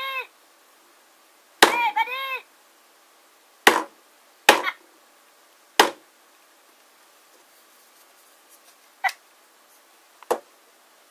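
McDonald's Minion plastic toys being handled. A short, high, warbling toy sound comes about two seconds in, then five sharp clicks or knocks are spread through the rest.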